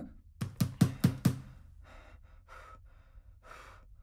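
A man hyperventilating in a claustrophobic panic attack: four quick, voiced gasps in about a second, then fainter heavy breaths about once a second.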